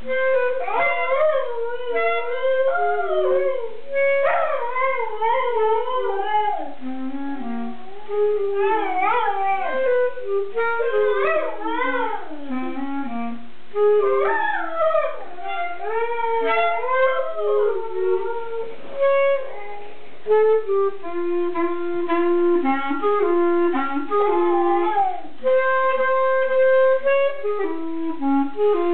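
A clarinet plays held notes while a dog howls along, its howls sliding up and down in pitch. After about two-thirds of the way through the howling mostly drops out and the clarinet carries on with steady notes.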